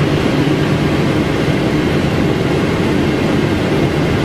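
Steady, loud rushing noise on the flight deck of a Boeing 777 on final approach: airflow and engine noise, with no distinct tones or knocks.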